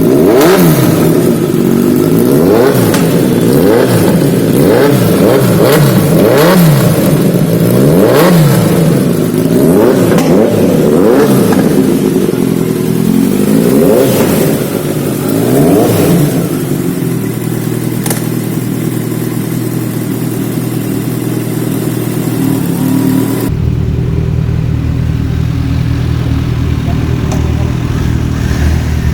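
Inline-four sport motorcycle engine revved in about a dozen quick throttle blips, each rising and falling, then settling to a steady idle. About two-thirds of the way through, the sound changes abruptly to a deeper, duller steady idle.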